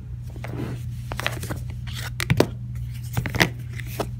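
Hands rummaging through a box of yarn skeins: irregular rustling, crinkling and scraping, with a few louder crackles about two and a half and three and a half seconds in.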